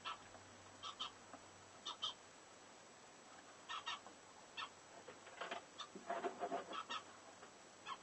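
Lovebird giving short, soft chirps, often in pairs about a second apart, with a brief burst of rougher chattering about six seconds in.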